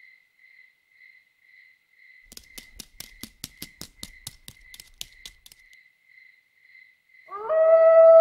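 A canine howl, fox-like rather than a dog's, starts near the end, rising at first and then held. Before it there is faint regular chirping, about two pulses a second, and in the middle a run of quick, light clicks.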